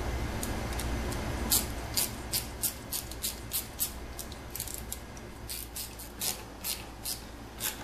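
Metal hose clamps and fittings being handled and fitted onto the heater's rubber hoses: a run of sharp, irregular clicks, about two or three a second, starting about a second and a half in. Under it a low steady hum drops away at about the same point.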